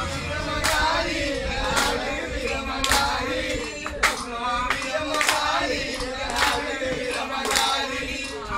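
Music: voices singing over a percussion beat that strikes about once a second.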